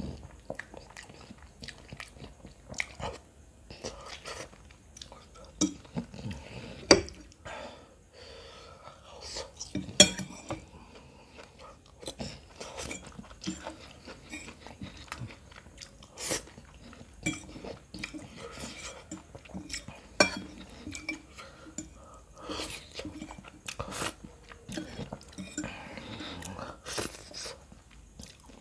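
Close-miked mouth sounds of eating saucy noodles: chewing and slurping strands, with a metal fork clinking and scraping on a plate. Irregular small clicks throughout, with a few sharper, louder clicks.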